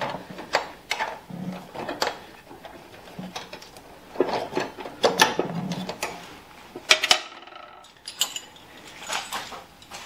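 Irregular metallic clinks and knocks of a hand wrench working loose the bolt that holds the wheel shaft on a snowblower's drive. A sharper metal clank about seven seconds in rings on briefly.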